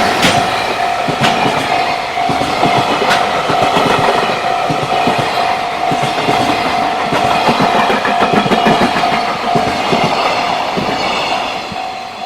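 Freight train hauled by an EF210 electric locomotive running past at a level crossing, its wagons' wheels rumbling and clattering over the rails. The crossing's warning bell rings steadily on one repeating note throughout, and the train noise eases near the end.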